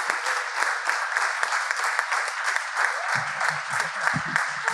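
A small audience applauding, with dense, even clapping throughout.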